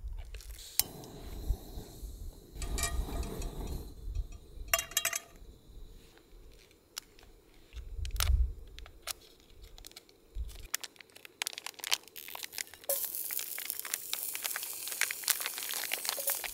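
Camp cooking preparation: plastic food packaging crinkling and tearing, with scattered clinks and knocks of cookware. Near the end a steady hiss sets in.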